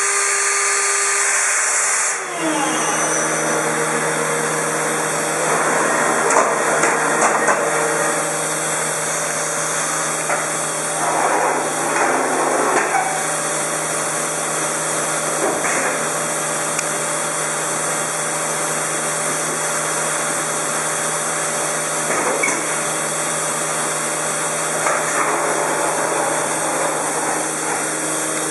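Shoda CNC router spindle running while trimming a pressure-formed plastic keyboard cover: a steady high-speed whine with irregular swells of cutting noise as the bit works through the plastic. A loud high hiss cuts off about two seconds in.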